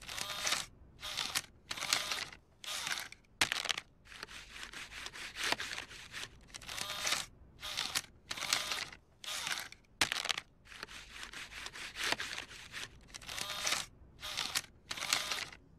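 A cartoon bill acceptor's raspy mechanical whir in short repeated bursts as it draws a crumpled paper bill in and pushes it back out: the machine rejecting the crumpled bill.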